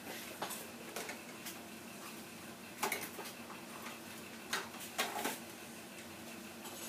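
Packaging and parts of a boxed RC airboat being handled: a scatter of light clicks and knocks, the loudest about three seconds in and a quick cluster near five seconds.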